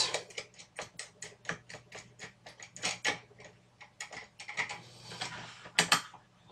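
Rapid, even ticking clicks, about five a second, as a fastener at the amplifier's front panel is unscrewed. The clicks thin out after the first few seconds, and a sharper double click comes near the end.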